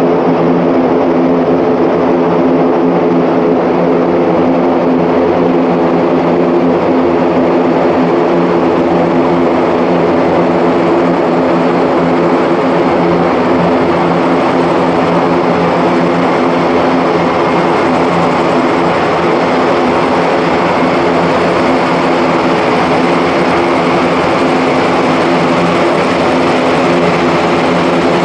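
Airbus A400M's four Europrop TP400-D6 turboprop engines and propellers running at taxi power: a loud, steady propeller hum of several held tones over a broad rushing noise.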